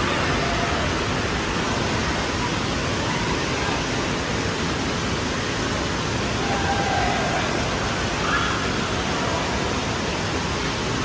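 Steady rushing noise of an indoor pool hall, running water and echoing room noise at an even level.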